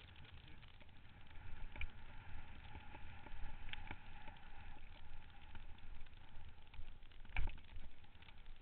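Mountain bike descending a rough dirt and stone single-track: steady rumble and rattle of the tyres and frame over the trail, with wind on the microphone. A sharp knock about seven seconds in, as the bike hits a bump.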